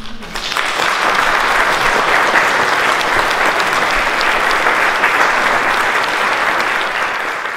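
Audience applauding, swelling within the first second and then holding steady before easing slightly near the end.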